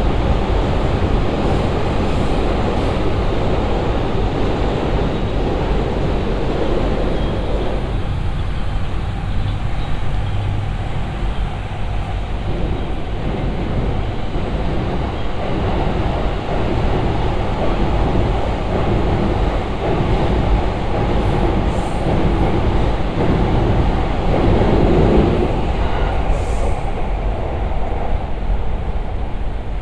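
Train running on the rails with a steady, loud rumble.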